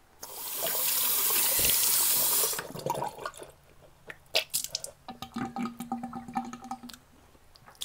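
Bathroom tap running hard into the sink for about two and a half seconds, then shut off, followed by a run of quick small clicks and scrapes at the basin.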